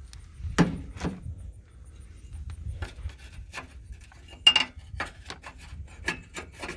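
Scattered knocks and clicks of metal parts and tools being handled during a bumper bracket fitting, with one sharp metallic clink about four and a half seconds in, over a steady low rumble.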